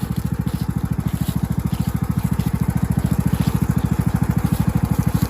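John Deere riding lawn mower engine running steadily at a constant speed, with an even, rapid chug of firing pulses.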